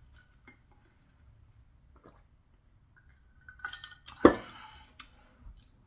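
A few faint small clicks, then an insulated tumbler set down on the tabletop about four seconds in with one sharp clink that rings briefly.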